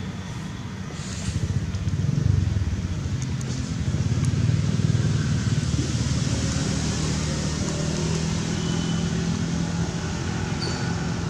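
Motor vehicle engine running steadily, a low hum that grows louder about two seconds in and then holds.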